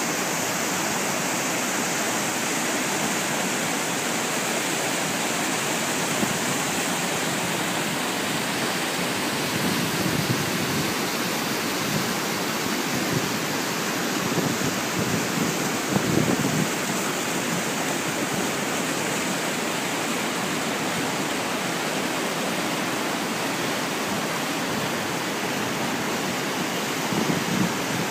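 Waterfall and rocky stream rushing steadily: an even, unbroken wash of falling and flowing water.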